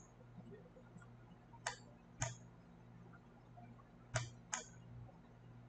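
Computer mouse clicking: four faint clicks in two pairs, each pair about half a second apart, over a faint steady low hum.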